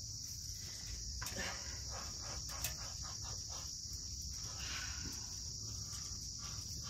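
Steady, high-pitched trilling of crickets, with a few faint ticks.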